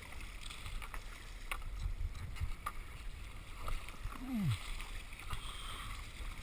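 Surf ski being paddled through choppy, sloppy sea: a steady low wash of water with sharp, irregular clicks and slaps from the paddle and hull. A short falling tone about four seconds in.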